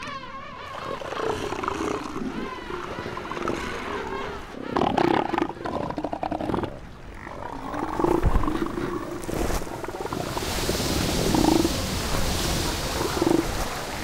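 Bull southern elephant seals calling repeatedly in a fight for the beach, loud throaty calls from open mouths. From about ten seconds in, water splashes and churns as they rear and slam against each other.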